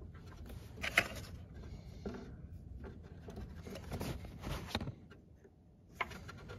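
Needle-nose pliers working at a lawn mower's fuel line and its clip: a few small metal clicks and scrapes, the sharpest about a second in and a cluster around four to five seconds in.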